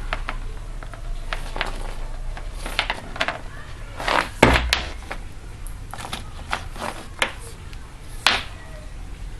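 Hands handling a USB-C charging cable and a silicone cable tie: scattered clicks, taps and light knocks, the loudest about four and a half seconds in and again about eight seconds in.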